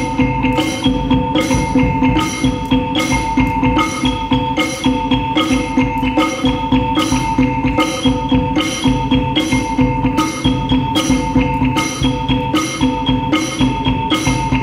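Live percussion ensemble playing a steady pulse of struck notes, about two a second, over several sustained ringing pitched tones.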